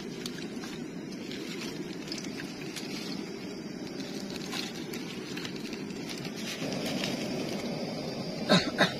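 Portable camping gas canister stove burning at a steady roar under a pot of water. Near the end come two brief sharp sounds.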